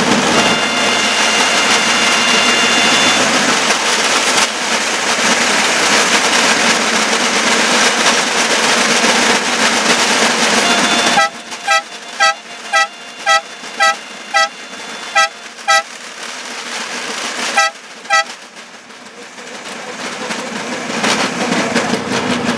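Homemade rail draisine running along the track with a loud steady running noise. About eleven seconds in the noise drops and a horn gives a quick series of about nine short toots, roughly two a second, then two more a couple of seconds later.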